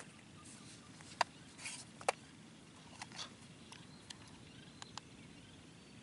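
Quiet outdoor background with a few sharp light clicks and soft rustles from handling a scoped hunting rifle. The two loudest clicks come about one and two seconds in.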